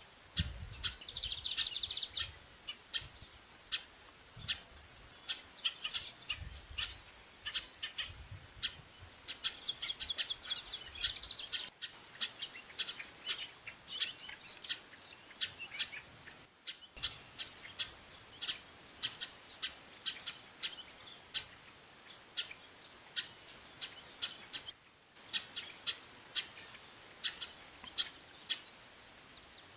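Female chestnut-capped blackbird calling insistently: sharp, short call notes repeated about two a second, over a steady high insect hum.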